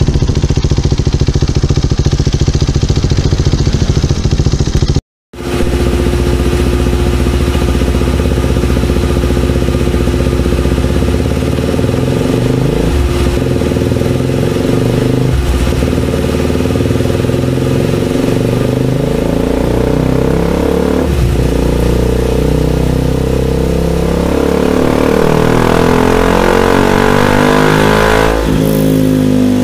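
KTM 390 single-cylinder engine breathing through an aftermarket Akrapovic exhaust on a dynamometer run. It holds a steady pitch with a few brief dips, then climbs in pitch in a long pull over the last several seconds and breaks off briefly near the end. Before that, for about five seconds, another KTM Duke 390 runs with a fast, even exhaust pulse, ending in an abrupt cut.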